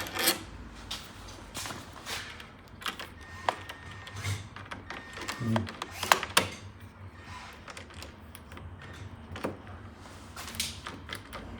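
Scattered small metal clicks and knocks as a door lock is taken out: the fixing screw turned all the way out and the lock worked free of the door.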